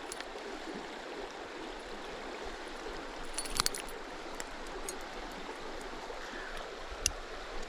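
River water flowing steadily over a rocky trout stream, with a few small clicks from handling about halfway through and again near the end.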